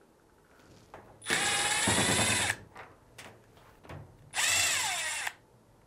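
Power drill-driver backing out two screws: two short whirring runs about two seconds apart, the second one's pitch sinking as it winds down.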